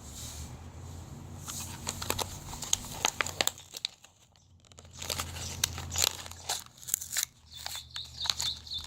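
Toy packaging crinkling and crackling as it is handled and torn open, in many quick small crackles, with a short quiet pause about four seconds in.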